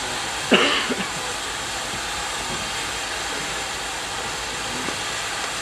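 Steam locomotive and its train running in the distance under a steady rushing hiss, with one short, loud sharp sound about half a second in.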